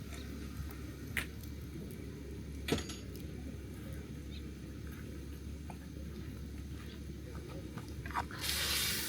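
A camp-oven pot of paella cooking over a campfire: a few light clinks of utensils against the pot over a steady low background. Near the end a broad sizzling hiss starts from the pot.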